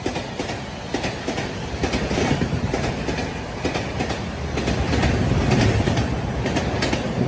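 Passenger train passing through a station on the adjacent track without stopping: steady rumble of the coaches with a rapid clatter of wheel clicks over the rail joints.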